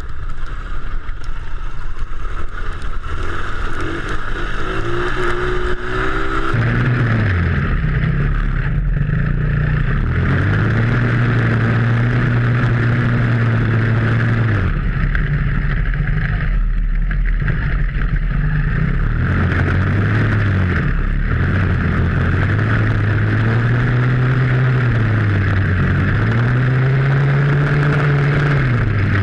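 Small kids' ATV engine running under way, its pitch rising and falling repeatedly as the throttle is worked on and off.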